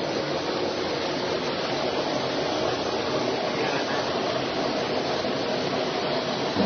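Steady, even rushing noise with no distinct tones: the background din of a machine shop.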